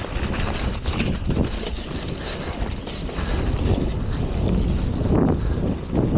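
Wind buffeting the microphone on a moving mountain bike, a steady low rumble with a few brief knocks from riding over rough ground.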